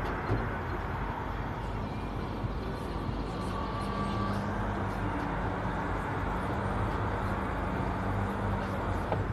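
A vehicle engine running with a low steady hum, heard over constant outdoor noise; the hum comes in about three seconds in.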